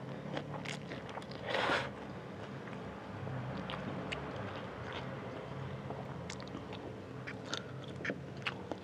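A person eating spicy fried instant noodles close to the microphone: a loud slurp about a second and a half in, then steady chewing with many short wet mouth clicks and smacks.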